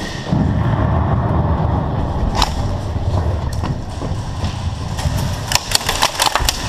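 Airsoft guns firing during a game: one sharp shot about two and a half seconds in and a quick run of shots near the end, over a steady low rumble.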